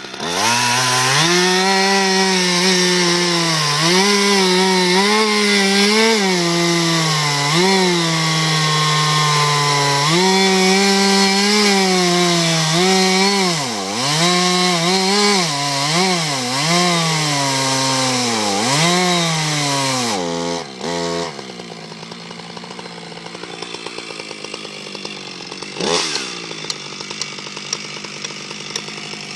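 Two-stroke chainsaw cutting into the tree, its engine pitch rising and dipping repeatedly under load. About twenty seconds in it drops to idle, with one sharp knock a few seconds later.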